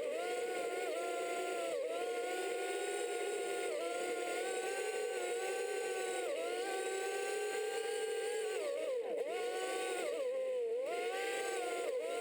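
A small motor droning at a high, steady pitch that steps up and down every few seconds as the throttle changes, with quick swoops down and back up about nine and ten and a half seconds in.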